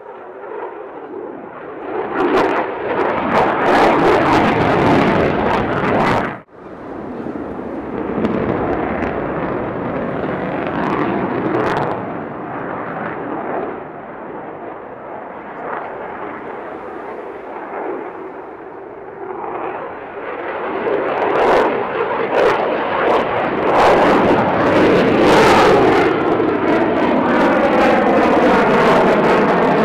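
Jet noise from an F-22 Raptor's twin afterburning turbofans during a display pass. It grows loud from about two seconds in, breaks off for an instant around six seconds in, then swells again in the second half with a sweeping, phasing whoosh near the end.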